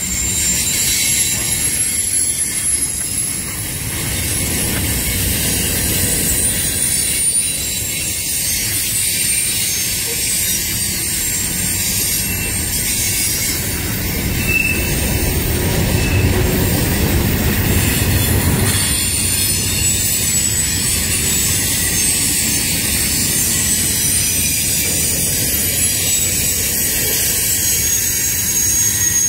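CSX freight train cars rolling past, wheels squealing with thin high tones over a steady rumble. A deeper rumble swells from about the middle and eases off a few seconds later.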